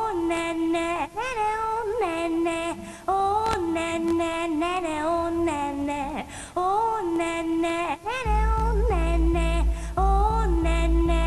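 Music: a high voice sings short phrases that slide up into each note, and a deep, pulsing bass line joins about eight seconds in.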